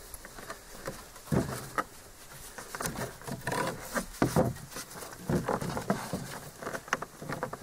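Cord being pulled tight through a knot lashing two bark-covered saplings together, with irregular short rustles and squeaks of the cord rubbing as it is drawn up.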